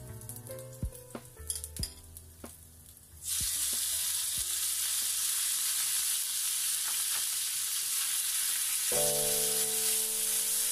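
Sliced raw beef dropped into hot oil in a frying pan, setting off loud, steady sizzling about three seconds in and stirred with tongs. Before that, ginger fries more quietly in the oil, with a few light clicks.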